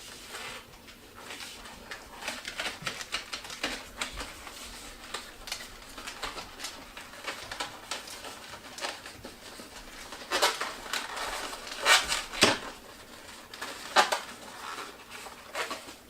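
Latex twisting balloons being handled and twisted: a continuous run of irregular rubbery squeaks and creaks, with a few louder squeaks about ten to fourteen seconds in.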